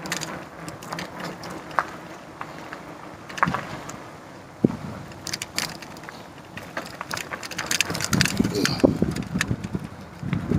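Bicycle rattling and knocking as it rolls over rough, broken street pavement, with many scattered sharp clicks over a steady rush of wind on the microphone.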